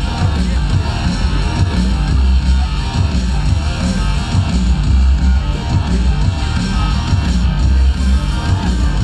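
Loud rock music with guitar and a heavy, steady bass beat.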